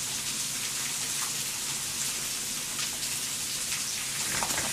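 Pork belly frying in a pan: a steady sizzling hiss with a few small pops.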